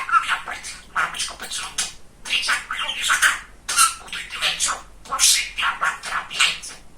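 Pet budgerigar chattering and warbling in quick, high-pitched bursts with short pauses between them.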